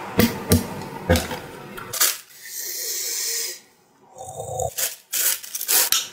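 Unboxing handling: a run of sharp clicks and knocks as packaging and parts are handled, with a rustle of plastic about two seconds in.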